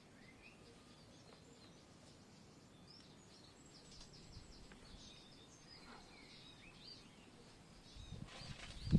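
Faint birds chirping, with short rising and falling calls scattered through. Near the end a low rumbling noise swells up.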